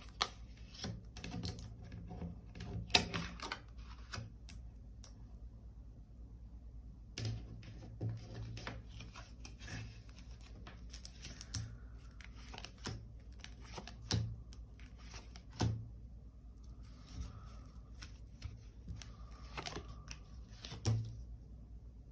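Tarot cards being handled on a table: scattered light taps and clicks with short stretches of soft rustling as cards are shuffled and laid out.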